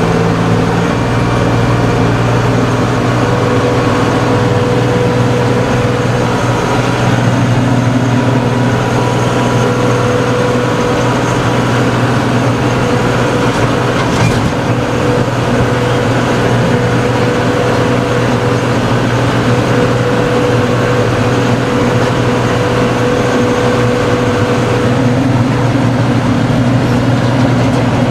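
Tractor engine running steadily under load while driving a rotary tiller through the PTO at lowered PTO speed, with a steady tone above the engine's drone.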